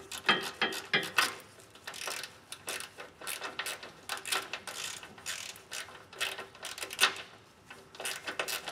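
Socket ratchet clicking in quick, irregular runs of strokes as it backs out a 13 mm bolt on the fuel filter's mounting band.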